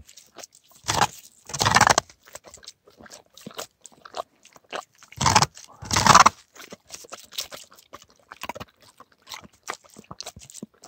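A dog licking and crunching at the ice of a frozen stock tank close to the microphone. There are constant small wet clicks from the tongue, with louder scraping crunches twice near a second in and twice around five to six seconds in.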